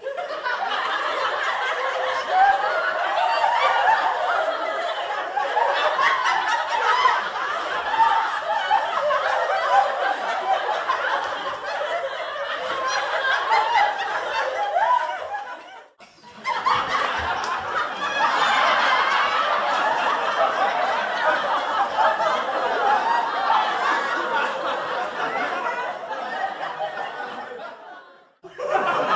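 Sitcom laugh track: a studio audience laughing and chuckling together. It breaks off about halfway through, starts again at once, and fades out shortly before the end.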